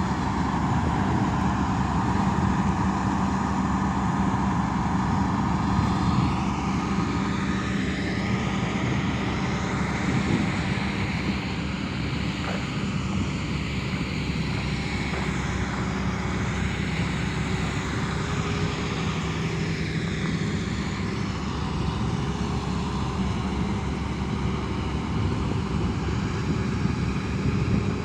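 An excavator's diesel engine running as a steady drone, its note shifting somewhat in the middle as the machine works.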